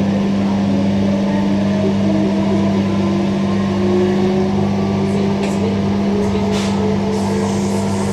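Interior of a Transperth A-series electric train accelerating away from a station: the traction motors' whine climbs slowly in pitch over a steady low electrical hum. A few sharp clicks come in the second half.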